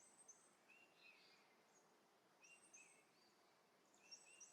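Near silence with faint birds chirping in the background: short chirps repeated every second or so.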